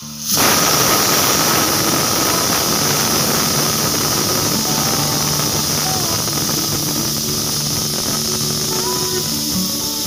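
Pressure cooker whistle blowing: steam jets from the vent weight with a loud, shrill hiss that starts suddenly just after the start and keeps going steadily, easing only slightly. The whistle is the sign that the cooker has reached pressure and is venting.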